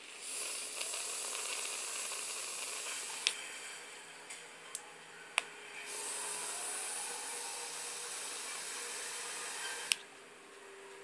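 3D dripper rebuildable atomizer on a Nemesis clone mod being vaped: two long draws of about three to four seconds each, a steady hiss and sizzle of the firing coil and the air pulled through it, with a few sharp clicks between them.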